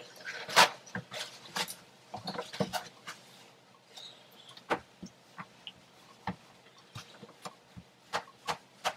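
Paper towels pulled from a roll and a cloth rubbed against a bathtub wall: scattered short rustles, taps and squeaks, the loudest less than a second in.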